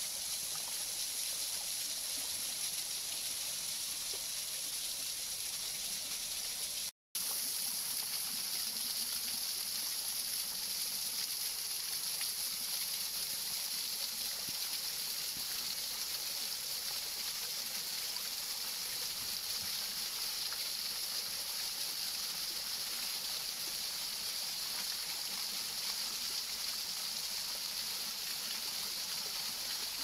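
Steady hiss of a small waterfall pouring into a shallow pool, with a light slosh of water. The sound cuts out for a moment about seven seconds in.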